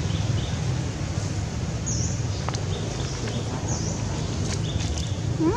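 Outdoor ambience with a steady low rumble, two short high chirps about two and four seconds in, and a few faint clicks. Near the end comes a short rising call.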